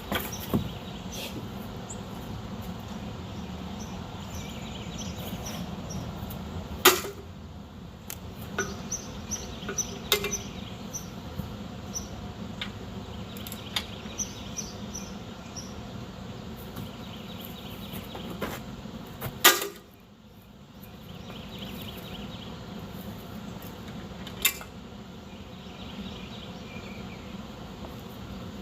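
Hand tools clinking and tapping on metal during rear axle installation on a pickup, with three sharp metallic strikes, the loudest about seven and nineteen seconds in, over a steady low hum.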